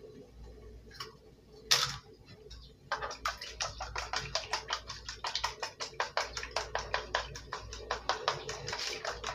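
An egg cracked with a sharp crack about two seconds in, then eggs beaten with a fork in a plastic container: fast, even clicking of the fork against the container, several strokes a second, from about three seconds in.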